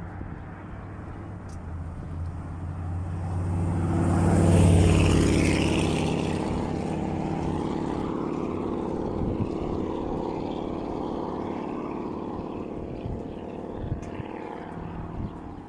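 An engine passing by: a steady hum that grows louder to a peak about five seconds in, then slowly fades.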